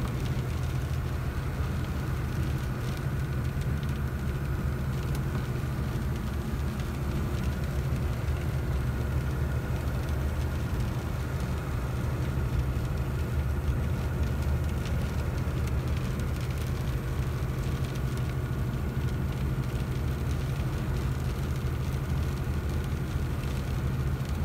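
Iveco Stralis 450 truck cruising at motorway speed, heard from inside the cab: a steady low drone from its 451 hp diesel engine at about 1500 rpm, with tyre and road noise.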